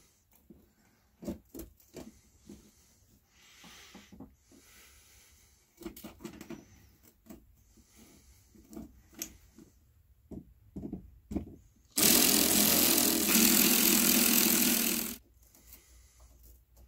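A handheld power tool runs steadily for about three seconds near the end, preceded by scattered clicks and knocks of metal hinge parts being handled.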